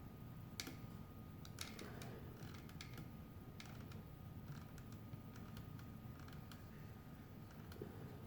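Light, irregular clicks and taps from small objects being handled, a few a second at most.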